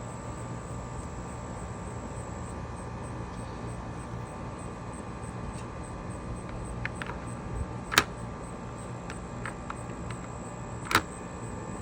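Steady outdoor background hum with a constant low drone, broken by two sharp clicks, one about eight seconds in and one about three seconds later.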